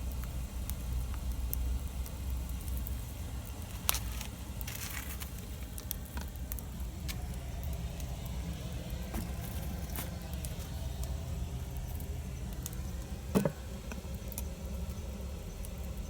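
Campfire crackling with scattered sharp pops, two of them louder, over a steady low rumble.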